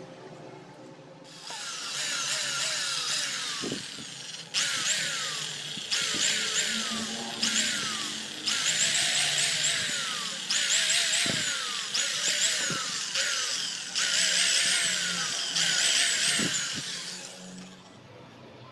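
Corded electric hand drill running in a series of short bursts, a second or two each, as it bores small holes through the plastic top of a sealed (VRLA) motorcycle battery. Background music plays underneath.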